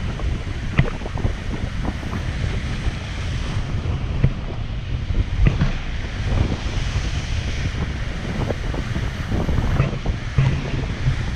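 Ocean waves surging and breaking against rocky coast, under heavy wind buffeting the microphone with irregular thumps.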